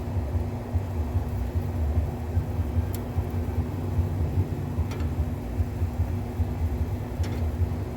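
Steady low rumble with a faint steady hum and three light clicks about two seconds apart.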